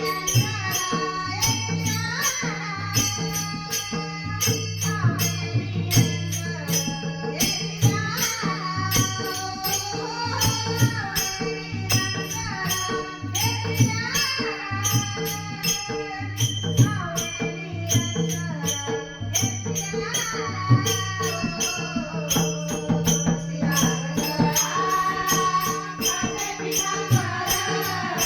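Marathi devotional bhajan music: a melodic vocal line gliding over a steady low drone, with mridang strokes and fast, even jingling percussion keeping the rhythm.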